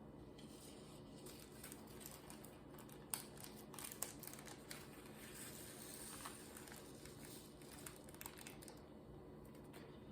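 Faint crinkling of small plastic baggies of diamond painting drills being handled and emptied, with a few light clicks, the sharpest about three and four seconds in.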